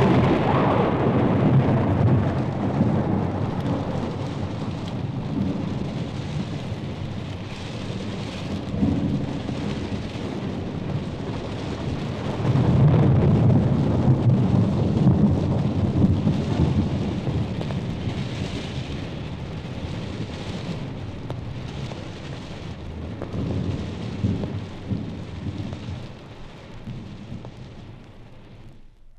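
Thunderstorm sound effect: steady rain with rolling thunder. The biggest rumble comes about halfway through, a shorter one follows later, and the storm fades out at the end.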